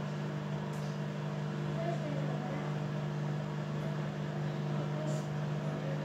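Hoover front-loading washing machine running mid-wash with a steady low hum.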